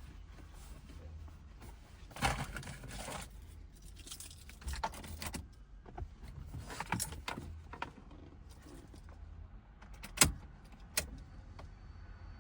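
Car keys jangling while the ignition key is worked in the Honda Accord's ignition, in several short rattling bursts, followed by two sharp clicks near the end.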